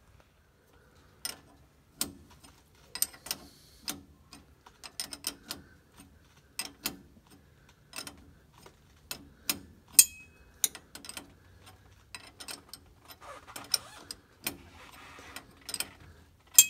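Wrenches clicking and clinking on metal as the nut on the Mitchell overdrive's shift-linkage rod end is tightened: an irregular series of sharp ticks, the loudest about ten seconds in and again near the end.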